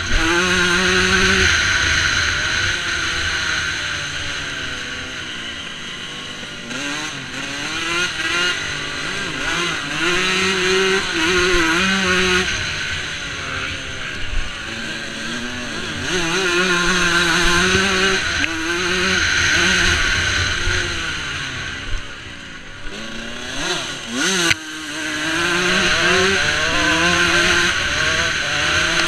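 125cc two-stroke motocross bike engine under the on-bike camera revving hard, its pitch climbing through each gear and dropping off, over and over. Wind rumbles on the microphone, and there is a sharp knock about 24 seconds in.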